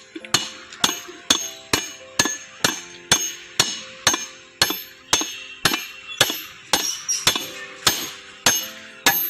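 Hammer striking metal in a steady series of blows, about two a second, each blow ringing on briefly: driving the pinion bearing home in a vehicle's differential housing.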